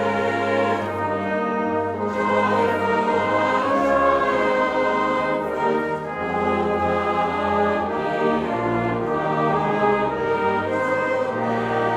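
Slow music of held chords, with a bass note that changes every second or two.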